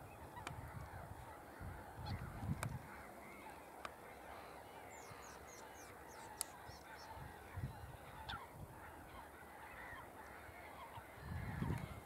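Faint, distant flock of geese honking, a continuous babble of overlapping calls. There is a short run of high chirps about five seconds in and a few low thumps.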